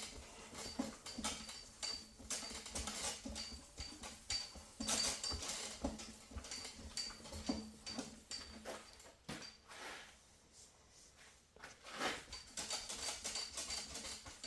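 Wet sanding by hand with 2000-grit paper on a sanding block over fresh automotive clear coat: quick, repeated scratchy strokes, easing off briefly about ten seconds in.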